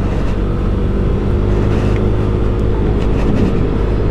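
Yamaha Aerox scooter's single-cylinder engine running at a steady cruising speed, its hum holding one even pitch, over a steady rush of noise.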